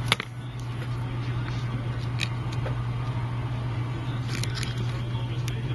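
A few light, sharp clicks of a razor blade and small tools working at the sealed screws inside an iPad mini, over a steady low hum.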